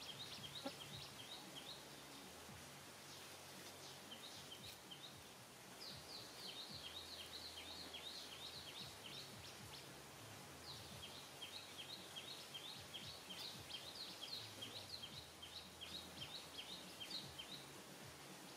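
Faint background in which a bird calls in long runs of quick, high, short chirps, several a second, each run lasting a few seconds with short pauses between. A faint low hum comes and goes underneath.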